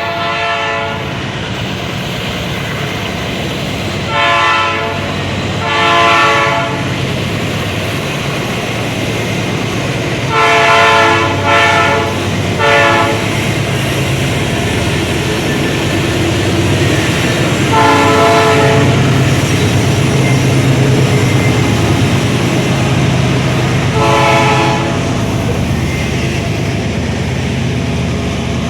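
Train passing with a steady low rumble while its locomotive horn sounds again and again: about eight blasts, with a quick cluster of three short ones in the middle.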